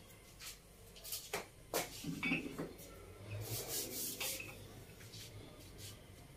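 Faint soft rubbing and light taps of a hand pressing and patting a ball of bread dough flat on a floured countertop.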